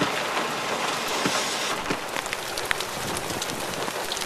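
Heavy rain pouring down: a steady hiss with scattered sharp drop taps.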